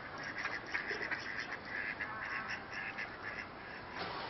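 A flock of mallard ducks quacking, many short quacks in quick succession that thin out near the end.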